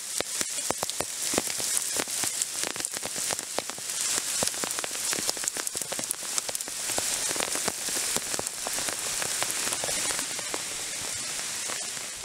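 Rain starting to fall, a steady hiss with many separate drops ticking, fading out near the end.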